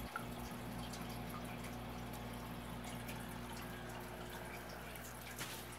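Aquarium filter running: water trickling and dripping over a steady low hum, with scattered light ticks and a small knock near the end.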